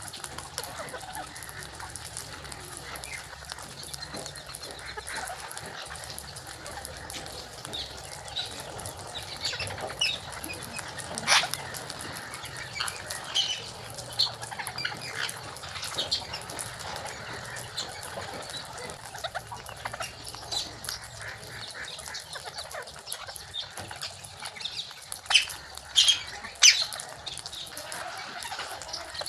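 Rose-ringed parakeets squawking: scattered shrill calls, with a loud one about eleven seconds in and a burst of the loudest calls near the end.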